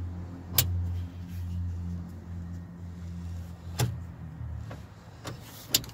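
A few sharp clicks as the Kia Sedona sliding door's latch release cable is pressed into its plastic retainer clips on the door's inner panel. Behind them is a steady low hum that fades out near the end.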